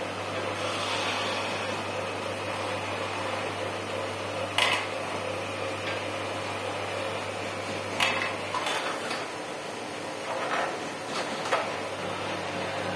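Short metallic clicks and knocks as a tool works the wood lathe's brass chuck, over a steady low hum. The hum drops out for about three seconds in the second half.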